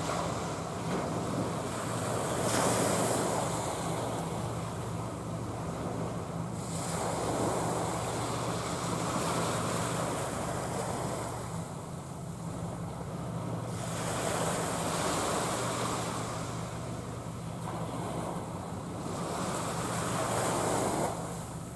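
Water washing in slow surges that swell and fade every several seconds, mixed with wind, over a steady low hum.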